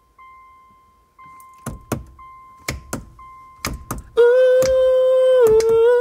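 An electronic chime beeps about once a second, with a few pairs of sharp knocks. About four seconds in, a man's voice cuts in with a loud, long sung note that dips and rises slightly in pitch.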